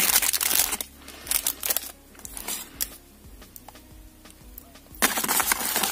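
Clear plastic packaging bag crinkling and rustling as it is handled, loudest in the first second and again near the end, with scattered softer crackles between.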